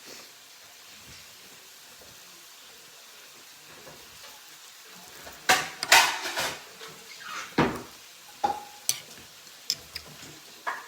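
Dishes and utensils clinking and clattering in a quick, irregular run of sharp taps and knocks, some ringing briefly. It starts about halfway in, after a quiet stretch.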